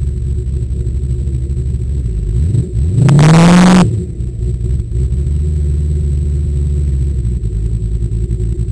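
Engine of a 1978 Dodge Challenger race car, heard from inside the cabin, running low and steady, with one quick throttle blip about two and a half seconds in: the pitch climbs sharply and loud for about a second, then falls back.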